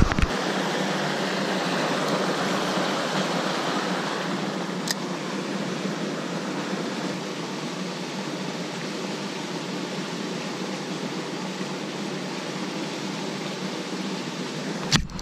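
Steady rushing of fresh water pouring into the pond through a small rocky inlet, a noisy hiss that eases slightly after the first few seconds. A couple of sharp clicks come near the end.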